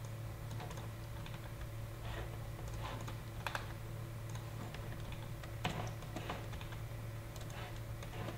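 Scattered, irregular clicks of a computer keyboard and mouse in use, over a steady low hum.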